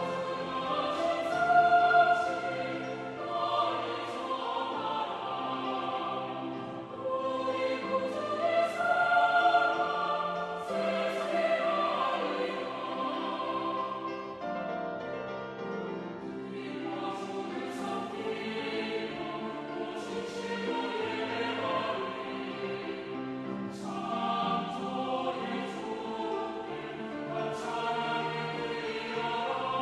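Church choir singing a sacred anthem in parts, the voices held in sustained harmony and the chords changing every second or two.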